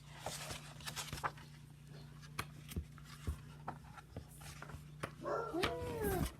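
A dog whining briefly near the end, a short call that falls in pitch, among scattered light clicks and rustles.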